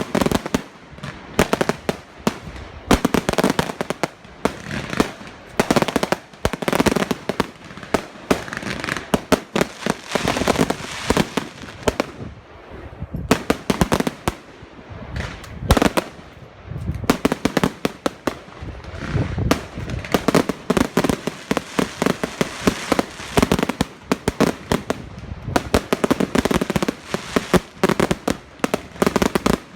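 Fireworks going off in quick succession: a dense, unbroken run of sharp bangs, many a second.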